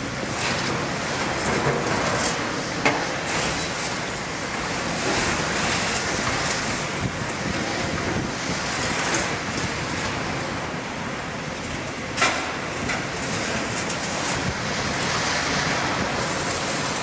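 Caterpillar hydraulic excavators working on a demolition site: a steady drone of engines and hydraulics, with a sharp knock about three seconds in and a louder one about twelve seconds in, as scrap and debris are handled.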